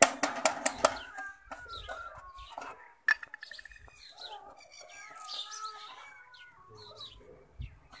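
Chickens clucking: a quick run of loud clucks, about four a second, in the first second. Quieter wavering calls follow, with a single sharp click about three seconds in.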